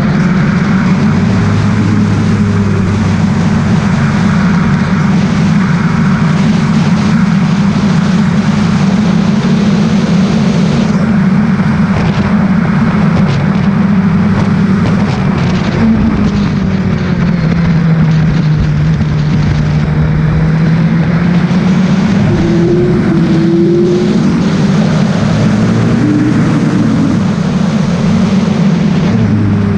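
Williams FW29 Formula 1 car's engine heard onboard while lapping at speed, with a steady rushing noise over it. The engine note holds fairly level, drops for a couple of seconds around the middle and climbs again.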